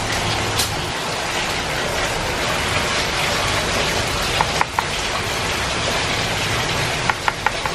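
Steady heavy rain. A metal fork clinks lightly against the plate a couple of times midway and several times in quick succession near the end.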